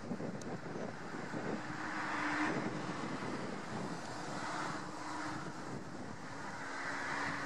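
Car driving: steady road and tyre noise with a faint engine hum, heard from inside the moving car. The noise grows louder about two seconds in and again near the end.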